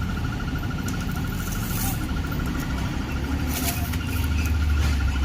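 A motor vehicle's engine rumbling, growing louder in the last second or two. Behind it there is a steady, rapid, high chirping.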